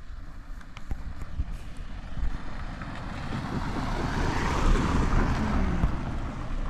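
A road vehicle passing close by: its engine and tyre noise build to a peak about four to five seconds in, the engine note dropping in pitch as it goes past, with wind buffeting the microphone.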